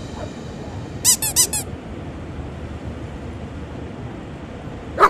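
Four quick, high-pitched squeaks in a row about a second in, over a steady hiss, with one short sharp sound near the end.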